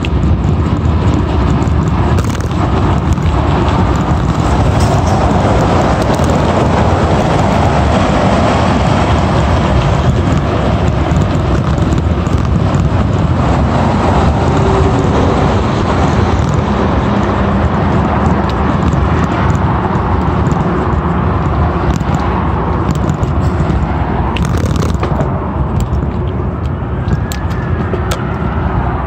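Steady rush of wind buffeting a phone microphone on a moving bicycle, mixed with the noise of road traffic.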